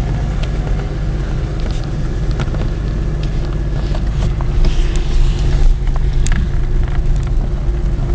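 A 1994 Chevy Lumina Euro's 3.1 V6 running as the car slows to a stop: a steady low rumble with scattered small clicks and a brief hiss about four to six seconds in.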